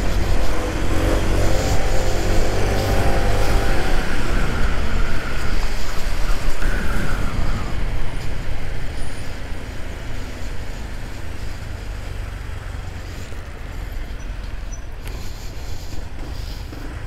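Road and traffic noise heard from a near-silent electric motorcycle on the move: a steady low rumble, with another vehicle's engine close by rising in pitch between about one and four seconds in. The noise eases off in the second half.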